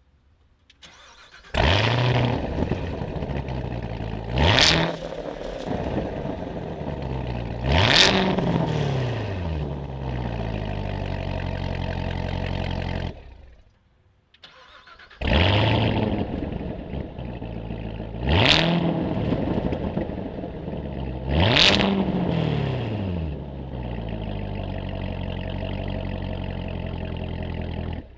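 The 2019 Corvette ZR1's supercharged LT5 V8 is started twice, with its exhaust in Track Mode. Each time it catches with a loud flare, is revved sharply twice, settles into a steady idle, and is then switched off.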